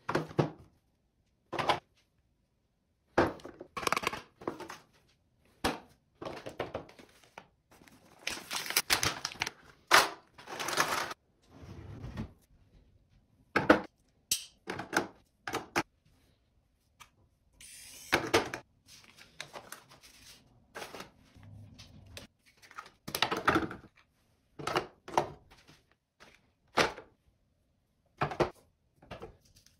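Toiletries and plastic bottles being set down one after another into clear plastic organizer bins in a vanity drawer: short plastic clacks and knocks with silent gaps between, and a few longer stretches of packaging rustling.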